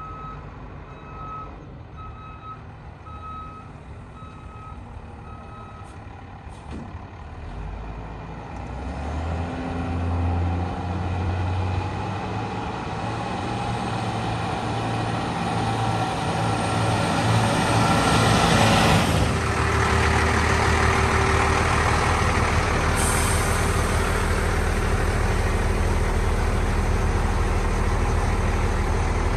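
A truck's backup alarm beeps faintly about once a second, six times. The 1997 International 4700's DT466 inline-six diesel then grows louder as the truck drives up, loudest about two-thirds through, with a short air-brake hiss shortly after, and then settles into a steady idle.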